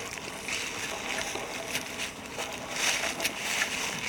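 Footsteps walking through dry fallen leaves, with irregular crunching and rustling at each step.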